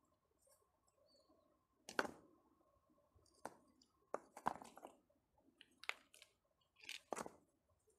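Rough fieldstones knocking against each other as they are set by hand onto a stacked stone pile: a handful of sharp, short clacks, the loudest about two seconds in and a quick double knock near the end.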